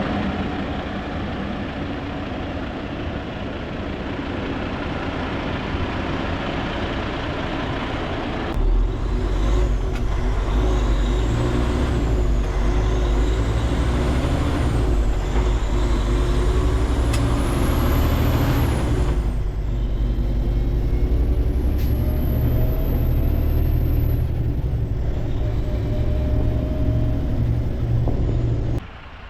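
Heavy diesel truck engine running. About eight seconds in it becomes a louder, deeper drone, then cuts off suddenly near the end.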